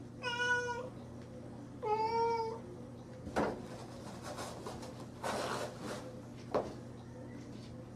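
A cat meows twice, two short calls in the first three seconds, then paws at a toilet paper roll on its holder, with a few brief rustles and knocks of the paper and roll.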